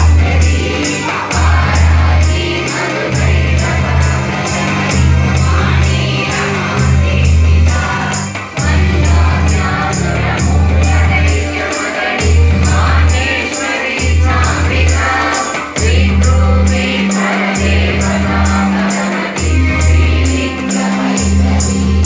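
A group of people singing a devotional song together, with a steady rhythmic accompaniment and a deep beat that pulses about every second and a half.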